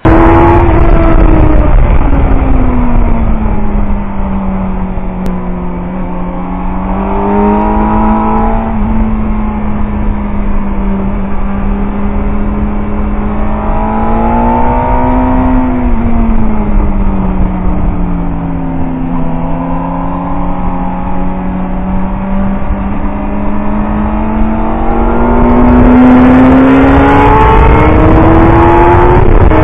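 Suzuki GSX-R750 K4's inline-four engine running hard at track speed, heard from a camera on the bike over steady wind rush. The engine note drops in the first few seconds, rises and falls again about halfway through, then climbs steadily near the end.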